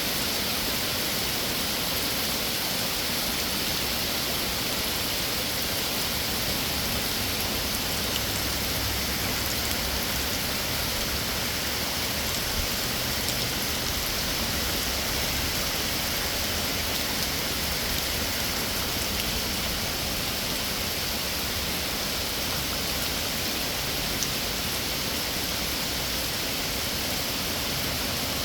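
Heavy rain falling steadily: an even, unbroken hiss with a few faint drop taps.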